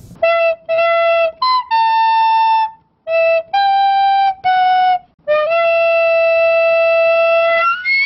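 Intro music: a short melody of single notes on a flute-like wind instrument, ending on a long held note.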